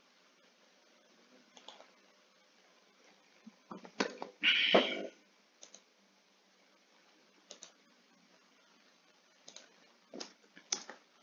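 Computer mouse clicks and keyboard typing, sparse and quiet, with a busier patch around four seconds in and a run of keystrokes near the end. Just after the busy patch comes a brief, louder noise lasting about half a second.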